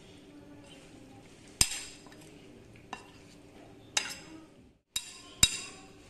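Steel spoon clinking against the side of a bowl while mixing raw prawns into a thick chilli paste: five sharp, irregular clinks, the last one loudest.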